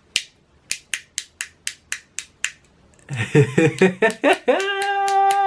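A run of sharp, dry clicks, about four a second, stopping about two and a half seconds in; then a man's voice comes in and sings a steady held note near the end.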